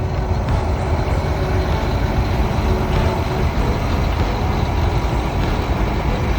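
Steady engine and road noise inside a semi truck's cab while driving, mostly a deep, even rumble.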